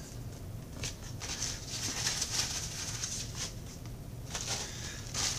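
Plastic wrapping on a set of plastic food containers rustling and crinkling under handling, with a few light knocks of hard plastic lids and containers on a wooden table.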